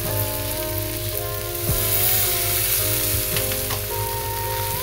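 Fried potatoes, peanuts and peas sizzling in oil in a pan, stirred with a slotted spatula, with flattened rice (poha) being added. Instrumental background music with held notes that change pitch in steps plays under it.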